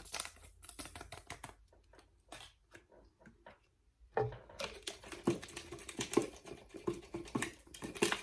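Rapid crinkly taps and rustling from a packet of pink lemonade Kool-Aid powder being shaken out over fruit; the handling gets busier and louder about four seconds in.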